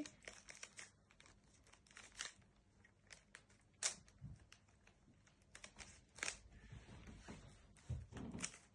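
A plastic Rubik's Cube being turned by hand: faint, irregular clicks and clacks as its layers are twisted.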